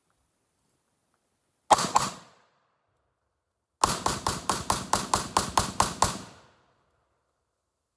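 Czech Small Arms Vz58 semi-automatic rifle in 7.62x39mm firing: a quick pair of shots about two seconds in, then a rapid string of about a dozen shots, roughly five a second.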